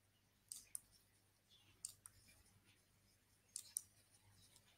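Faint computer mouse clicks, three press-and-release pairs about a fifth of a second apart, one pair for each dot drawn, with near silence between them.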